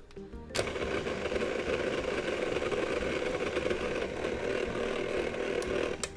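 Hobart stand mixer's motor switched on about half a second in, running steadily as its flat beater works flour into cookie dough, then switched off just before the end.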